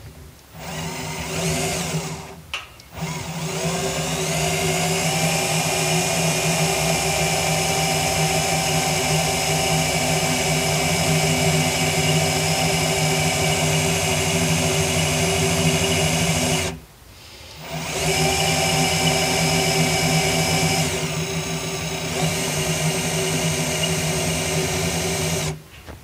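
Cordless drill boring into the steel agitator shaft of a washing machine: the motor runs with a steady whine under load, rising in pitch as it spins up. It stops briefly twice and restarts, then stops near the end.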